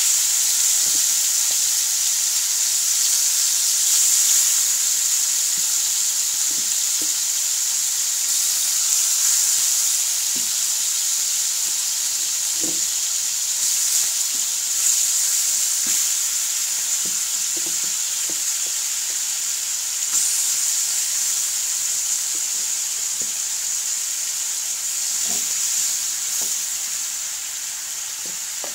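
Chicken pieces and garlic sizzling steadily as they fry in a wok, with scattered light taps and scrapes of a wooden spatula stirring and turning them.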